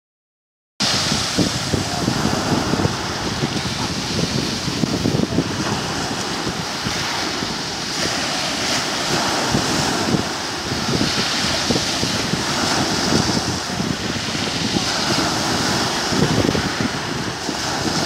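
Small sea waves breaking onto a pebble beach and washing back over the stones, a continuous surf wash that starts just under a second in. Wind buffets the microphone throughout.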